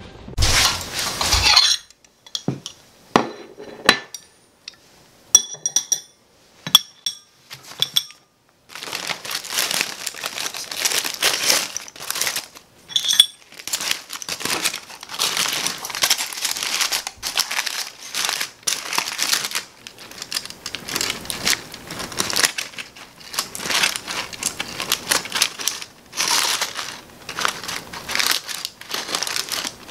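Aluminium foil and paper wrapping crinkling and rustling steadily as a foil-wrapped roast chicken is opened and picked at with a fork. Before it, a few separate light clinks and taps of cutlery and dishes.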